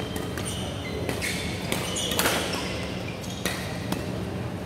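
Badminton rally: rackets striking the shuttlecock in a series of sharp cracks at irregular intervals, the loudest about two seconds in, with players' steps on the court.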